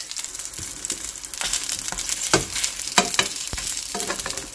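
Dumplings pan-frying in oil in a nonstick frying pan: a steady sizzle broken by sharp crackles and pops of spattering oil.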